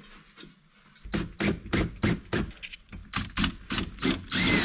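Hand-tool work while a metal bracket is fitted: a regular run of short strokes, about three or four a second, starting about a second in, with a brief squeak near the end.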